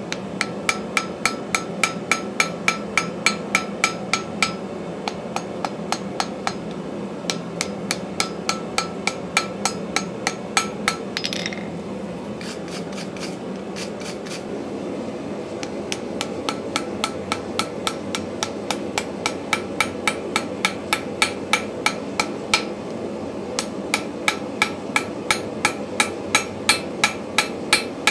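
Hand hammer striking a hot railroad-spike axe head on a steel anvil, about three blows a second, each with a bright anvil ring. Near the middle the hammering stops for a few seconds of scrubbing with a wire brush, then resumes. Under it runs the steady noise of a propane forge.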